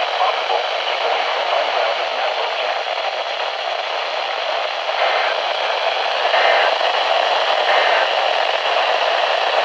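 Steady static hiss from a weather radio receiver tuned to a weak, distant NOAA Weather Radio transmitter, with no clear voice left in the signal. A few faint, brief changes in the hiss come about halfway through and after.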